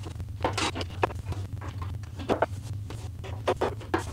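Several short knocks and clatters from handling the wooden sneaker display cabinet during assembly, over a steady low hum.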